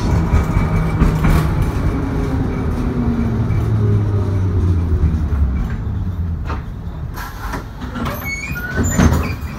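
LVS-86K articulated tram running on its rails: a low rumble and hum of motors and wheels that fades as the tram slows toward a stop. A few sharp knocks come in the second half.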